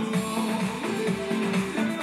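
Music with a steady beat, with guitar in it.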